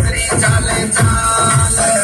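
Loud electronic dance music with a fast, steady kick-drum beat and a melody line above it.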